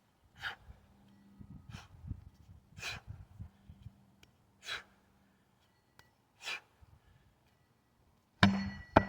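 A person's sharp, hissy breaths, five of them a second or two apart, with some low thuds in between. Near the end comes a loud sudden knock that rings briefly.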